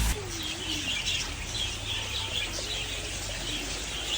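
A flock of small aviary birds chirping continuously in quick overlapping calls, with a low wavering note about half a second in.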